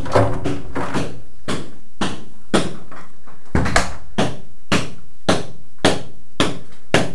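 Repeated sharp knocks, about two a second, from renovation work on an apartment wall, carried through the building's structure.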